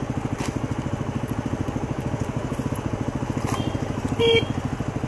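Single-cylinder Yamaha WR250R dual-sport engine running at low revs with an even pulse. About four seconds in, a short motorcycle horn beep comes in, one of the riders honking back and forth over bear sign on the trail.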